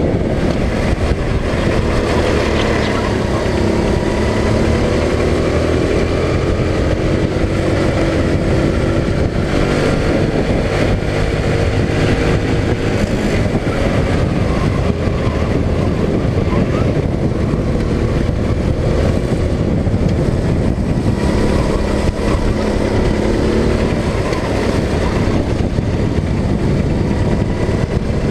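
Go-kart engine running hard, heard from on board, its pitch rising and falling as the kart slows for corners and accelerates out of them.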